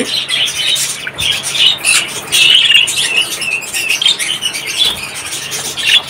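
Budgerigars chattering: a continuous stream of quick, high chirps and squeaks.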